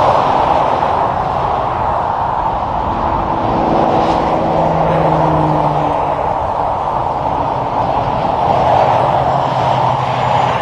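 Highway traffic passing, with cars and semi trucks making a steady tyre roar. Under it is the drone of heavy-truck diesel engines.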